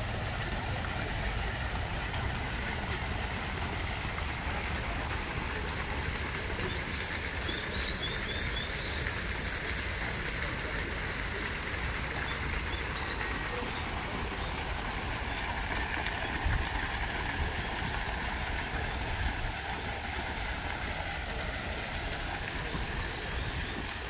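Steady outdoor background noise with a low rumble and hiss. About a third of the way in, a bird chirps briefly in a quick run of high notes.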